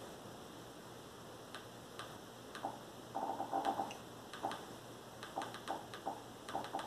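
Light clicks, some single and some in quick runs of several, from navigating and scrolling through the TV box's settings menu.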